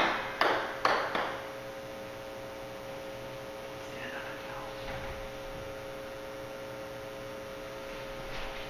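Grand piano's last chord dying away over the first second or so, with three soft knocks, then a steady faint hum for the rest.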